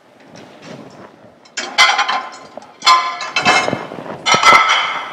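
Metal cookware clanging and scraping in three loud bursts with a ringing metallic tone, over the faint sizzle of chicken frying in a pan of oil.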